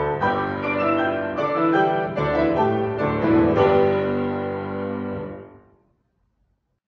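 Grand piano playing the closing bars of a piece, ending on a chord that is held and rings out, dying away about five to six seconds in.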